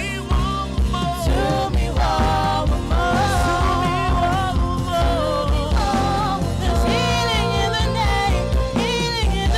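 A gospel song sung live by a woman and a man into microphones, over instrumental backing with a steady bass line and drum beat.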